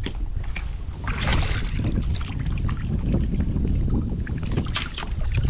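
Wind rumbling on the microphone over water, with brief splashes about a second in and near the end as a hooked bass is fought toward the boat.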